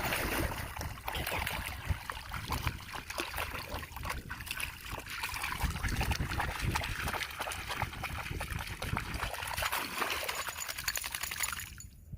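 Shallow seawater splashing and trickling, with a dense patter of small splashes that stops abruptly near the end.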